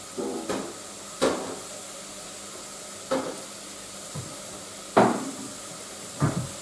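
Kitchen containers and utensils being set down and shifted on a bench: a string of separate clunks and knocks, the loudest about five seconds in, over a steady background hiss.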